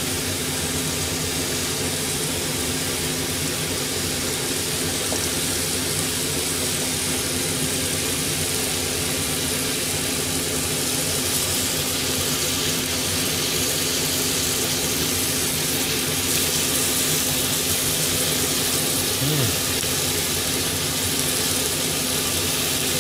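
Sliced beef, carrots and mushrooms sizzling steadily in a frying pan, with a steady low hum underneath.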